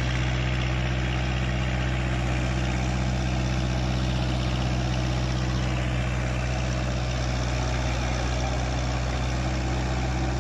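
Tractor diesel engine running at a steady speed, a constant low hum that does not rise or fall.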